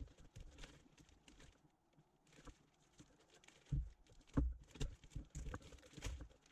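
Plastic vacuum-bag film being handled and pressed onto sealant tape by hand: scattered faint crinkles and soft taps, busier in the second half. The bag is being sealed around the mould before the resin infusion.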